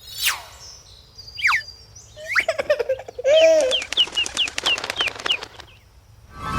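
Cartoon sound effects: a falling whistle at the start and another about a second and a half in, then a run of short bird chirps over a rapid flutter like flapping wings, which stops a second before the end.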